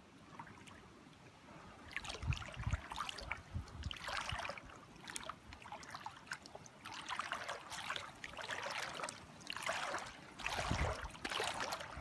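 Paddling strokes in calm spring-run water, splashing and dripping about every one to two seconds, beginning about two seconds in.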